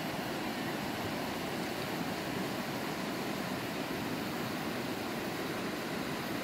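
A river flowing over stones, a steady, even rush of water.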